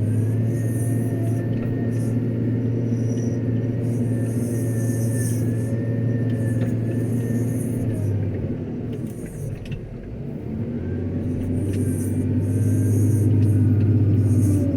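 JCB 426ZX wheel loader's diesel engine running under working load: a steady low drone with a thin high whine over it. About nine seconds in the engine eases off briefly, then builds up again.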